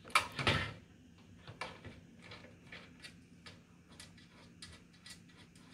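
Faint clicking, about two clicks a second, from a Phillips screwdriver turning a small screw out of the back of a network video recorder's metal case. A brief louder rustle comes right at the start.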